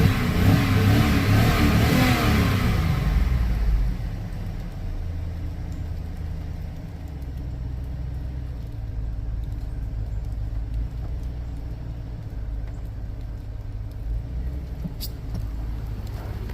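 2002 Chevrolet Tahoe's V8 engine revving for about four seconds, its pitch rising and falling, then dropping back to a steady idle. It is running normally after a rodent-chewed fuel injector wire was soldered back together.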